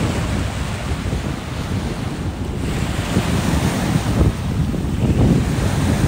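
Small lake waves breaking and washing up onto a sandy beach in a steady rushing wash, with wind buffeting the microphone in low rumbling gusts.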